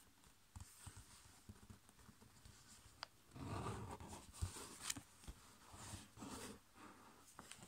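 Faint rustling and sliding of a sheet of copy paper being folded and creased by hand on a tabletop, loudest a little past halfway, with a few sharp ticks.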